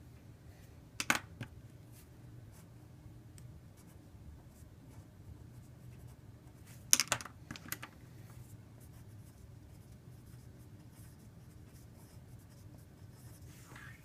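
Faint writing sounds from a pen or stylus, with two sharp clicks, one about a second in and one about seven seconds in, over a low steady hum.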